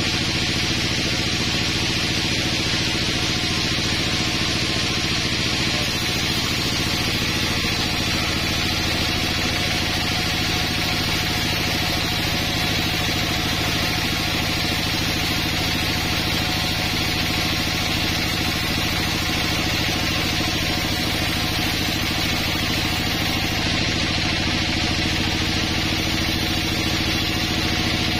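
Band sawmill running steadily as its vertical blade rips a pine board lengthwise: an even machine drone with a constant high hiss from the cut.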